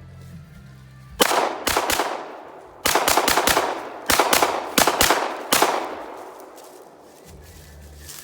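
Glock 17 9mm pistol firing about ten shots at bottle targets. The shots start about a second in: two single shots, then a quick string, ending a little over halfway through. Each report rings out briefly.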